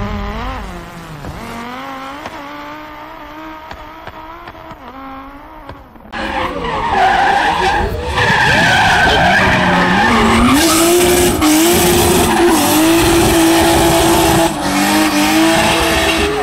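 Hillclimb race car engines revving hard through gear changes, with tyres squealing and skidding. About six seconds in the sound jumps suddenly from a quieter car to a much louder, closer one at full throttle.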